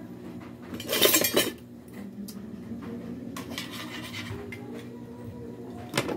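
Metal kitchen tongs and utensils clattering loudly about a second in, then the tongs scraping and knocking in a wok over a gas burner, with another clink near the end as they are set down. A faint steady low hum runs underneath.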